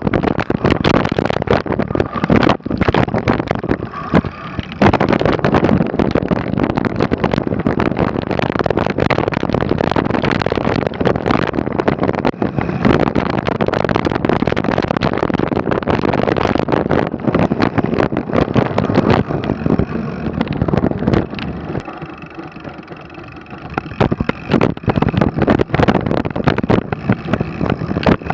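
Mountain bike riding down a snowy trail, recorded from the bike: constant rattling and clattering with tyre noise and wind on the microphone. It eases off for a moment about three quarters of the way through.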